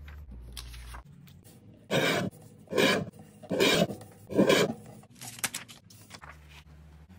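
Sheets of paper rustling and sliding against a paper trimmer's board as they are handled by hand: four loud swishes about a second apart, then softer rustles.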